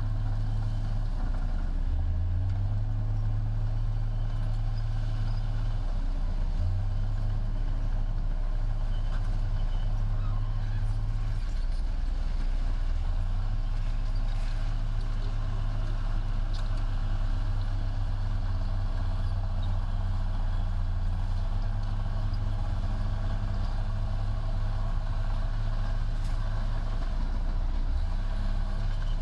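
Heavy diesel engine of earth-moving machinery running steadily, its low pitch shifting slightly now and then as the load changes.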